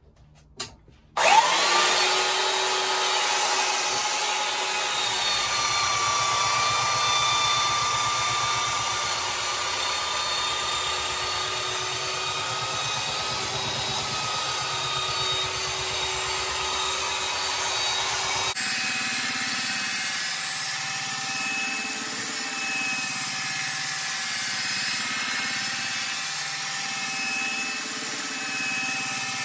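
Electric belt sander starting up about a second in and then running steadily with a motor whine while it sands the top edge of a planed softwood board. Partway through the sound changes abruptly and swells and fades every couple of seconds as the sander is worked back and forth along the edge.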